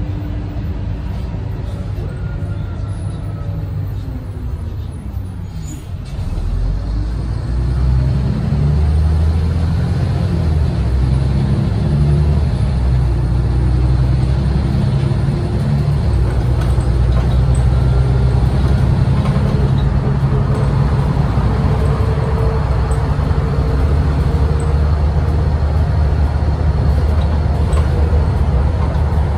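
Renault PR100.3 bus's 9.8-litre six-cylinder turbo diesel and ZF automatic driveline heard from inside the cabin. The pitch falls over the first few seconds; then, about six seconds in, the engine comes on louder under load and its tones climb slowly as the bus picks up speed.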